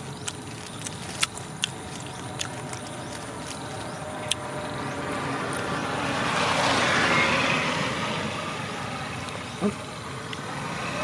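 A passing vehicle, its noise swelling to a peak about seven seconds in and then fading away. A few sharp clicks come in the first four seconds.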